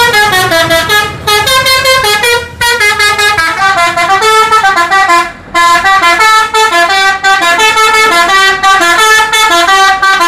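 Tour bus 'telolet' multi-tone musical horn playing a fast tune of stepped notes, several sounding together as chords, with short breaks between phrases, one about five seconds in.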